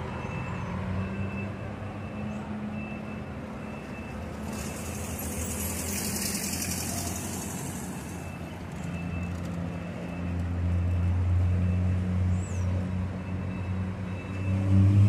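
Diesel engine of a Gontijo intercity coach running as the bus moves off, with a hiss of air a few seconds long about four seconds in. The engine grows louder about ten seconds in.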